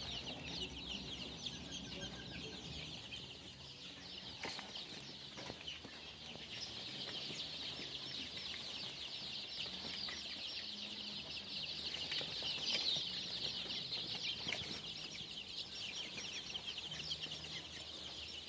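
A large flock of Cambodian native chicks peeping together, many short high chirps overlapping without a break. It grows a little louder after the middle.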